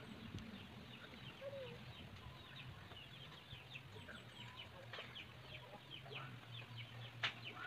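Faint chickens clucking, a quick run of short repeated calls that thickens from about three seconds in, over a low steady hum.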